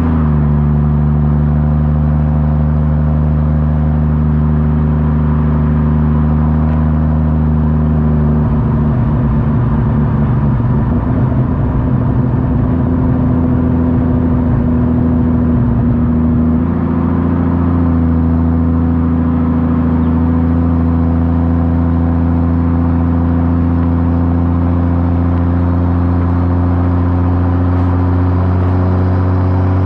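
Exhaust of a Ford FG Falcon XR6 Turbo's turbocharged inline-six, running on a 4-inch straight-through system with the rear muffler deleted, shotgun tips and a burble tune. It holds a steady engine note, breaks into a rough crackling burble for about eight seconds in the middle, then settles back to the steady note.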